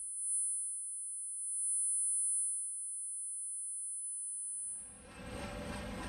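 A steady, high-pitched electronic tone, two close pitches held together, in a video intro sound effect. About five seconds in the tone cuts off and a dense, low, rumbling sound swells in.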